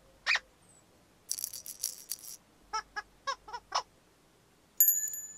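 Cartoon sound effects: a quick rising blip, about a second of high rattling, a run of five short squeaky notes, then a ringing, bell-like chime near the end.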